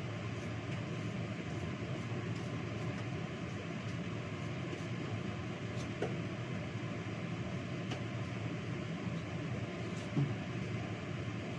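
Steady rushing machine noise in a kitchen, with a few light knocks from work at the counter, the clearest about ten seconds in.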